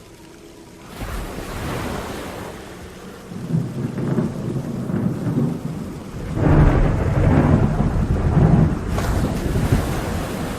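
Thunder rolling over steady rain in a storm soundscape. It starts nearly quiet, the rumble builds about a second in, and the loudest, deepest roll comes in the second half.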